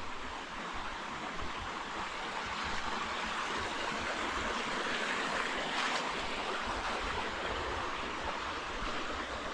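Steady rushing noise like running water, swelling slightly midway, with a low uneven wind rumble on the microphone.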